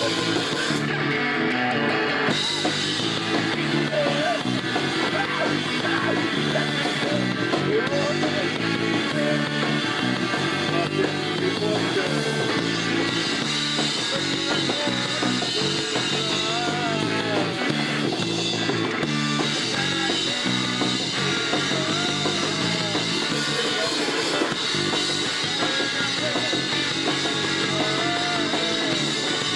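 Live punk rock band playing at a steady loud level, electric guitar to the fore.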